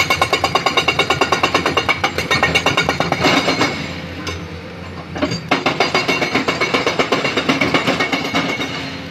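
Rapid, steady mechanical pounding at about ten strokes a second from heavy construction machinery, breaking off twice for about a second.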